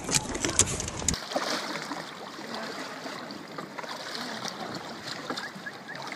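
Sea water lapping and sloshing against a wooden boat's hull, low and steady. In the first second there is a quick run of sharp clicks, then a sudden change to the quieter water sound.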